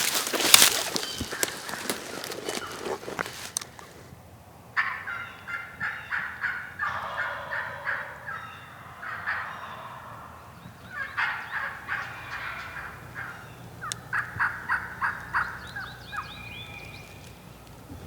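Rustling and handling noise for the first few seconds, then turkey calls: about six separate short bursts of rapid, rattling notes, each lasting a second or two.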